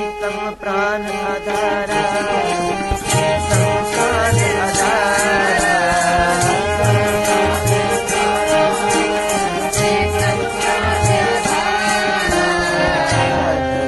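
Sikh kirtan: a man singing the shabad with a wavering vibrato, over held harmonium chords, deep tabla strokes and a steady jingling percussion.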